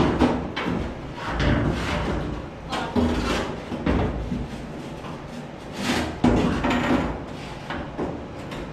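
Irregular metal clunks, knocks and scraping from a 1973 Ford F100 door as its window glass is worked up and out of the door shell.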